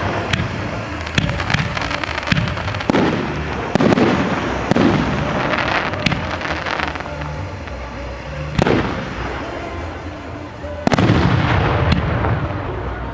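Fireworks display: an irregular series of shell bursts, sharp bangs with booming echoes, coming thickest near the end.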